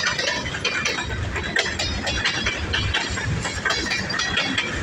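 CN freight train passing, its wheels and cars making rapid, irregular clicks and clanks over a low rumble.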